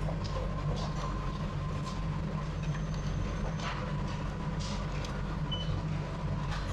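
Train running, heard from inside a carriage: a steady low rumble with a faint steady whine and occasional clicks and rattles.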